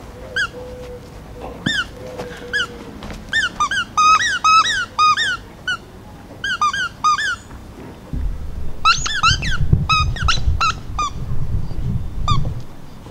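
A dog's squeaky toy squeezed over and over, giving short rising-and-falling squeaks in quick clusters, with a low rumble of handling and movement underneath in the second half.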